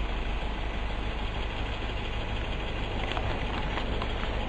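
City bus engine running with a steady low rumble, heard from inside the passenger cabin.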